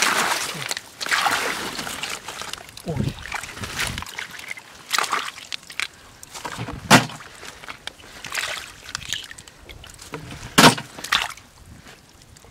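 Hands sloshing and splashing in shallow muddy water among lotus stems while groping for snails, with a few sharp knocks standing out, the loudest about seven seconds in and near the end.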